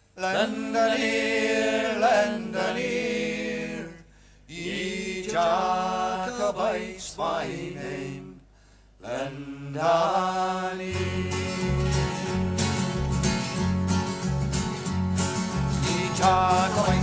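A man singing a slow Scottish folk song unaccompanied, long held notes with short pauses between phrases. About eleven seconds in, guitars come in with a steady strummed rhythm and a bass line.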